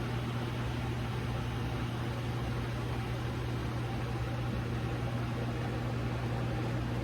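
Steady low hum with an even hiss, as from a small motor or fan running.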